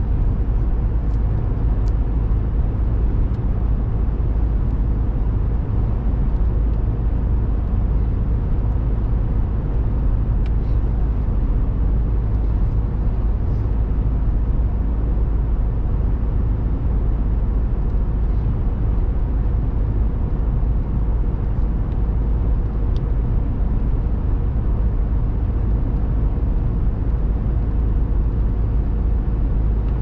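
Steady low rumble of road and engine noise inside a moving car's cabin, even throughout with a few faint ticks.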